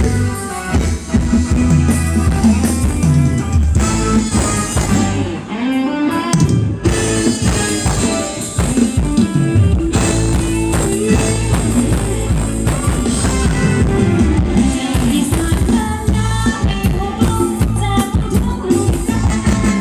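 Loud amplified live Thai luk thung band music for ramwong dancing: drum kit, bass and guitar keeping a steady dance beat.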